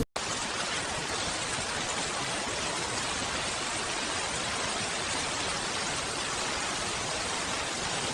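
Steady heavy rain, an even hiss that begins just after a brief cut to silence at the start and holds without change.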